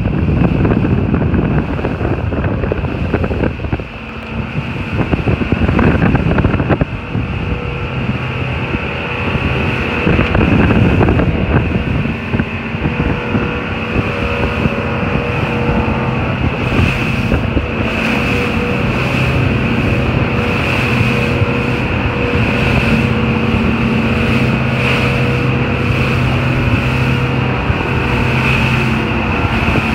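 Center-console boat running at speed on its outboard engines: a steady engine drone under rushing wind on the microphone and the hiss of spray and wake. The wind rush is heaviest for the first several seconds, and the engine drone comes through more clearly from about eight seconds in.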